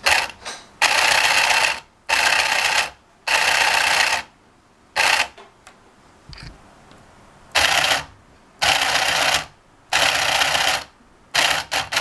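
Small recycled printer DC motor driving a 3D printed plastic gearbox with a 16 to 1 reduction, switched on and off repeatedly so that it runs in short whirring bursts of about a second each, roughly nine times.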